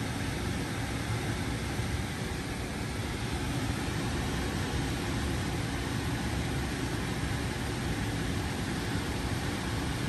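Ruud air handler's blower running steadily in heat mode: a steady rush of air with a low hum through the open cabinet.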